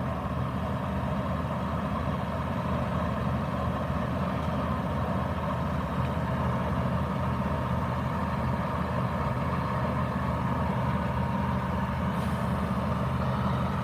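Fire truck engine running steadily at idle, a low even hum with a faint steady whine above it.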